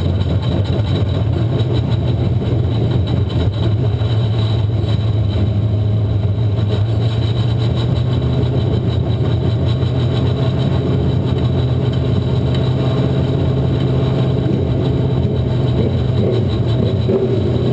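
Figure 8 race car's engine heard from on board, running steadily at low speed with no hard revving.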